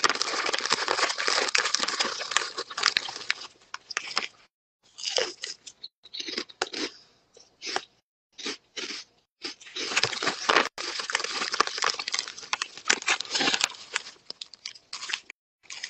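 Close-up crunching and chewing of crunchy spicy snack chips, mixed with the crinkle of the plastic chip bag as a hand digs in and handles it. It comes in spells with short breaks, loudest near the start and again in the second half.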